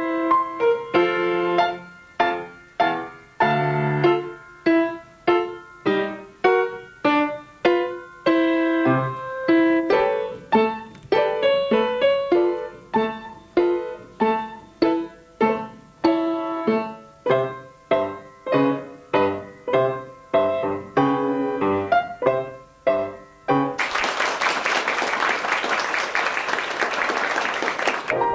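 Solo piano played at a steady pulse, each note and chord struck and left to ring away. The piece ends and applause breaks out for the last four seconds or so.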